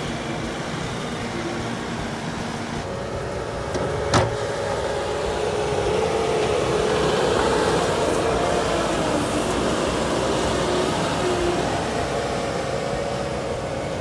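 Bobcat T770 tracked skid steer's diesel engine working under load while it digs, its pitch wavering up and down. There is a single sharp metallic knock about four seconds in.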